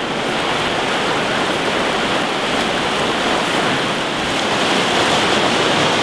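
Whitewater rapids on a fast mountain river, a steady rushing wash of water.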